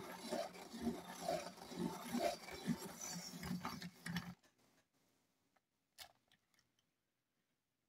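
Hand-cranked claw-type rotary pencil sharpener shaving a wooden pencil as its crank is turned, a steady mechanical grinding that stops abruptly after about four seconds. A single sharp click follows about a second and a half later.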